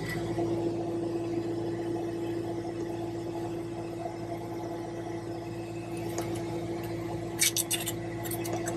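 Caterpillar 259D3 compact track loader's diesel engine idling steadily, heard from inside the closed cab, with a steady whine over the engine hum. A quick run of sharp clicks comes about seven and a half seconds in.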